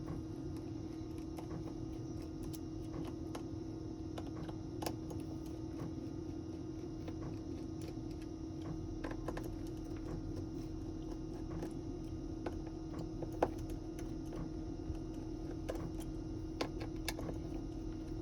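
Small hand tools and parts of a smartphone being handled during repair: irregular light clicks and taps, a few a second at most, over a steady low hum.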